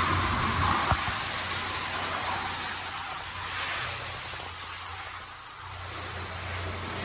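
Mark VII SoftTouch XT in-bay automatic car wash running: spinning brushes scrubbing a foam-covered car with a steady hiss of water, over a constant low hum from the machine. A short click about a second in.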